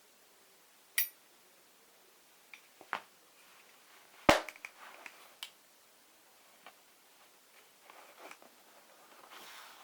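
Handling noises from a webbing pistol belt with metal fittings: a sharp metallic click about a second in, a couple of knocks near three seconds, the loudest knock about four seconds in with a brief rattle after it, then soft rustling of the webbing near the end.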